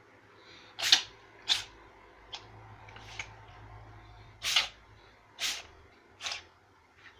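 Domestic cat sneezing over and over: five sharp sneezes with two softer ones between them, roughly a second apart.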